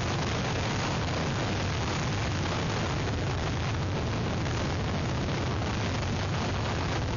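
Hurricane wind blowing over an outdoor webcam's microphone, with the storm's rain mixed in: a steady, dense rushing noise with a heavy low rumble and no let-up.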